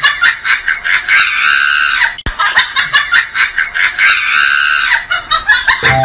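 High-pitched, sped-up laughter played as a sound effect, heard twice in a row with a short click between the two runs about two seconds in.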